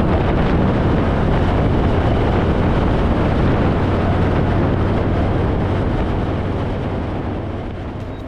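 Harley-Davidson Fat Boy's V-twin engine running steadily at cruising speed, mixed with a constant rush of wind, fading out near the end.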